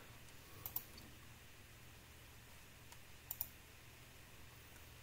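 Computer mouse double-clicking twice, about two and a half seconds apart, over a faint steady low hum.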